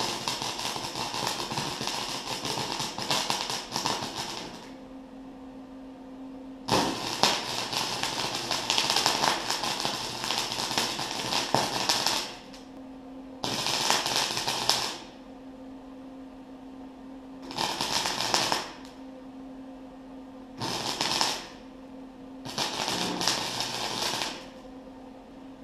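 Arc welding: the sputtering crackle of the welding arc in six bursts, the first two long (about four and five seconds), the rest shorter, with a steady hum of the welder between beads.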